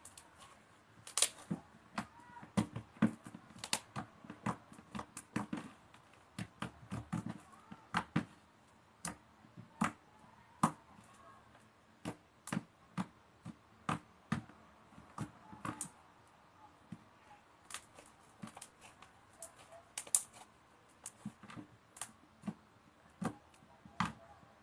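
Slime being squeezed and stretched by hand, making irregular sharp clicks and pops, a few each second.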